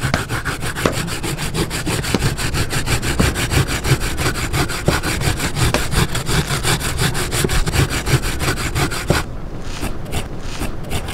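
A piece of coconut flesh scraped back and forth on a wooden board grater, a raspy scraping in quick, even strokes. The strokes thin out about nine seconds in.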